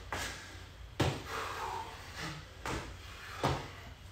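Sneakered feet landing on a concrete garage floor during repeated jumps: four thuds at uneven gaps of about a second, in a small echoing room.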